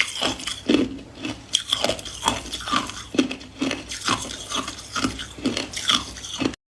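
Hard ice cubes being bitten and chewed close to the microphone: loud, irregular crunching several times a second, cutting off suddenly near the end.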